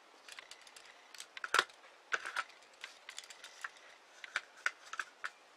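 Small 4 mm beads clicking and ticking against each other as thread is passed through them, in a string of light irregular clicks with one louder click about one and a half seconds in.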